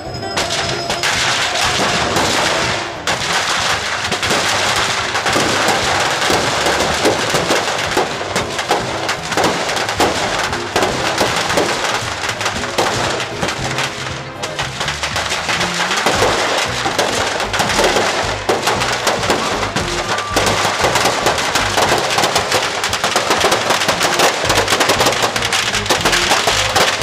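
Firecrackers crackling and popping rapidly and without a break in a burning effigy, with music underneath.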